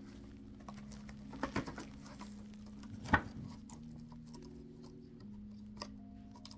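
Plastic packaging handled while unboxing a wireless mouse: scattered light taps and rustles, with one sharper click about three seconds in, over a faint steady hum.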